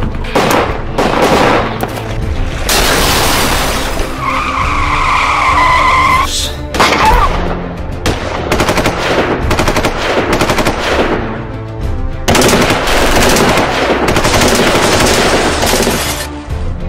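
Rapid bursts of gunfire sound effects over dramatic music, densest in the last few seconds. There is a long high screech about four seconds in.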